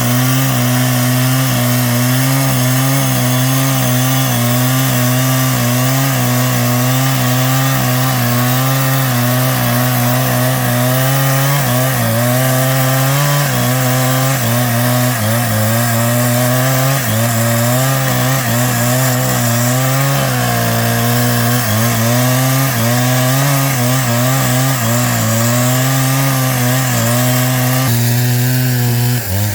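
A power tool's motor running continuously while working wood, its pitch wavering slightly as the load changes and dipping briefly near the end.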